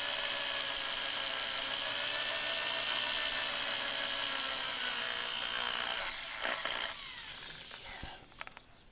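Electric drill running steadily with a high whine as its small pilot bit bores into a bolt broken off flush in a Cummins 8.3-litre diesel's cylinder head. It winds down about six seconds in, followed by a few light clicks.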